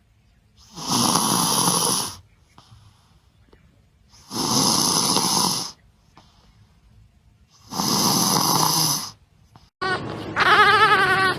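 Three long, rasping, snore-like breaths about three and a half seconds apart. Near the end, a newborn puppy starts crying in high, wavering calls.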